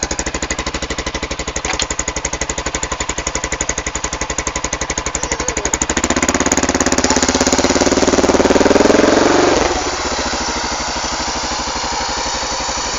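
ATV engine idling with a rapid, even putter, then revved up for about three and a half seconds from about six seconds in, the pitch climbing, before dropping back to idle.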